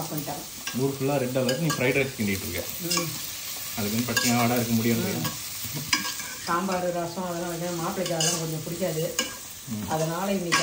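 A spatula stirring and scraping shredded vegetables in a pressure cooker pan, making repeated squeaky scrapes of wavering pitch with occasional clicks of metal on the pan, over a steady frying sizzle.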